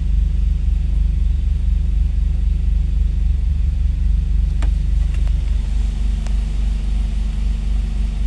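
Car engine idling steadily with a low, even rumble, with a few light clicks about halfway through.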